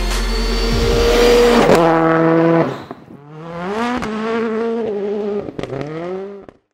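Rally car engine revving hard, its pitch climbing and dropping sharply at each gear change, with a sharp crack from the car about two-thirds of the way in; the sound cuts off suddenly near the end.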